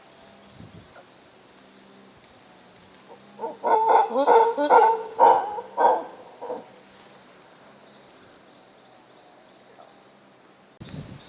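An animal giving a rapid series of loud hooting calls for about three seconds, starting a few seconds in, over a faint steady high insect whine.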